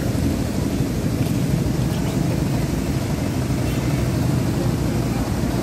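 Steady low rumble of street noise.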